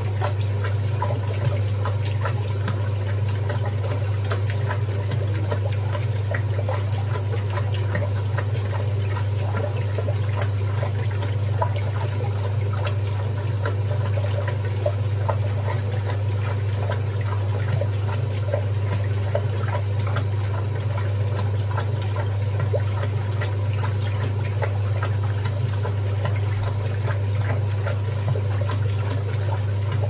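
1961 Hoover Keymatic 3224 front-loading washing machine churning a load of clothes in water: a steady motor hum with continual sloshing and splashing in the drum.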